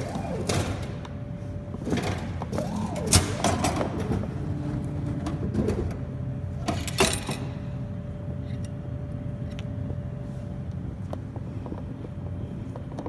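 Glass-front bottle vending machine with a steady hum, its delivery mechanism knocking and whirring in the first few seconds. About seven seconds in, a loud clatter as a bottle is pulled out through the delivery port's flap.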